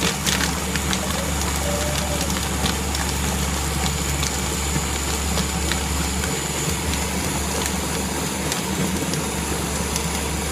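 Ninja blender motor running steadily, blending an ice shake in its plastic jar, with scattered small clicks of ice against the jar.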